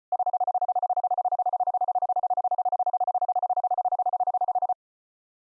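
Morse code sidetone from a CW keyer: a single steady beep keyed on and off in a fast, even string of dits, about fourteen a second. It stops suddenly near the end.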